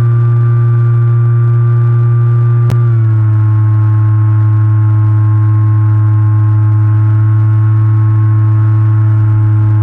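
RC model plane's motor and propeller running steadily in flight, a loud droning hum picked up by the onboard camera. A single sharp click comes a little under three seconds in, and the pitch then drops slightly and holds.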